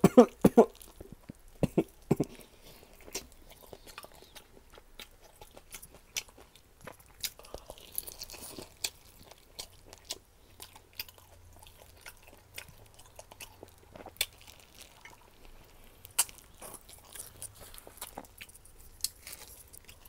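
A few coughs right at the start, from seasoning powder caught in the throat, then close-up chewing and crunching of crispy garlic fried chicken, with scattered crisp crunches throughout.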